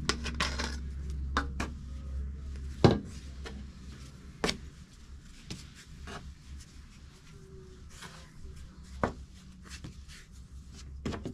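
Kitchen handling sounds while risen bread dough is being worked: scattered sharp knocks and taps with quieter rubbing between them, the loudest knock about three seconds in, over a low steady hum.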